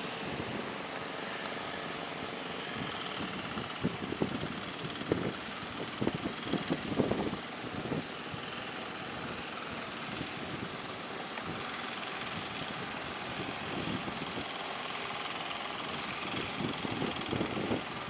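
Steady rushing noise of breaking surf, with irregular louder rumbling bursts about four to eight seconds in and again near the end.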